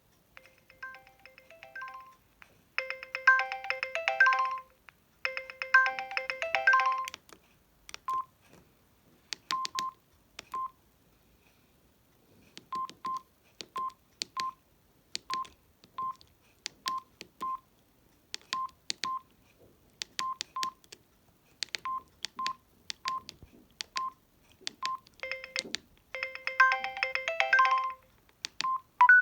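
Samsung SGH-D600 mobile phone's built-in timer alert: a short electronic beeping melody played three times over. Then come single keypad beeps with clicks of the keys as the menus are stepped through, and near the end another electronic alert tone, one of the phone's calendar tones.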